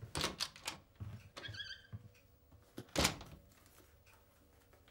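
A few light knocks and clunks, with a short squeak about a second and a half in and a louder thunk about three seconds in, then faint room tone.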